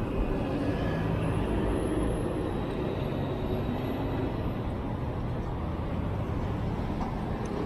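Steady road traffic noise: a continuous low rumble of cars and a truck passing on a busy city road close by.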